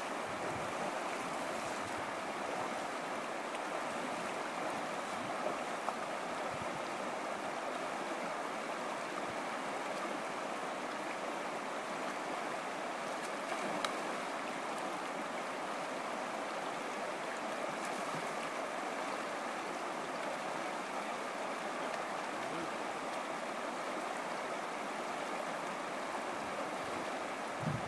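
Shallow stream running fast over rocks in riffles: a steady rushing of water, with a few faint clicks.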